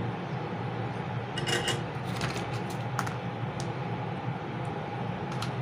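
A scattering of small, sharp clicks and taps from hand tools working on a circuit board, including flush side cutters snipping a component lead, over a steady low background hum.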